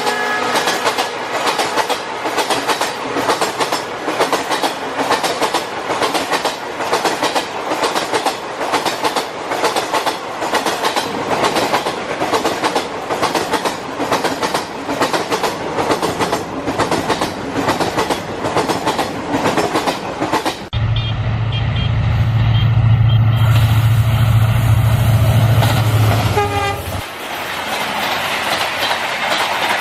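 Train running on track, its wheels clicking rhythmically over the rail joints at about two to three clicks a second. About two-thirds of the way through, the sound turns abruptly into a louder, deeper rumble for about six seconds, then the clicking returns.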